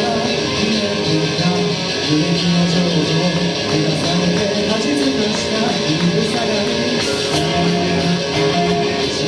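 A rock band playing live, led by strummed electric guitars over a bass line.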